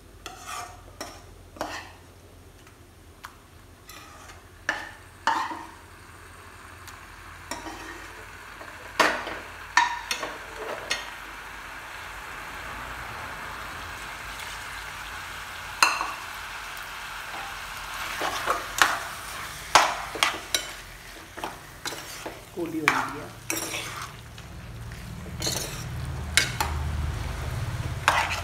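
A utensil stirring chicken in a pan of frying curry masala, with many sharp knocks and scrapes against the pan over a sizzle that swells through the middle.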